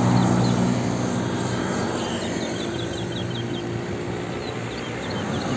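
Engine noise from a fuel tanker truck and a passing SUV. A low engine hum fades after about a second, leaving a steady wash of engine and road noise. Small birds chirp in short runs throughout.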